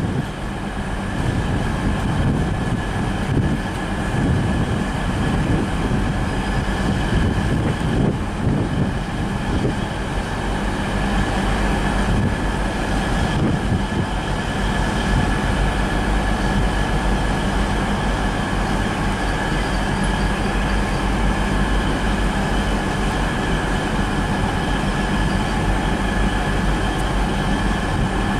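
Southeastern Class 395 'Javelin' electric multiple units passing, a steady rumble with a high tone held throughout.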